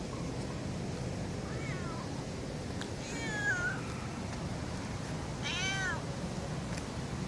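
Black cat meowing three times, short calls that rise and fall in pitch, about a second and a half apart.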